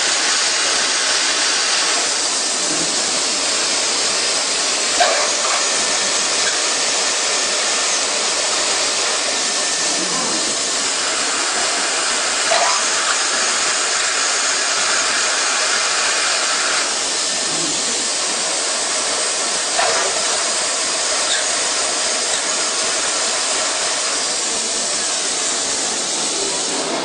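CNC machining center running a drilling cycle: a steady hiss with a short, sharp sound three times, about every seven seconds.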